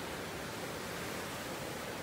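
Ocean surf breaking and washing up the beach: a steady, even rush of noise.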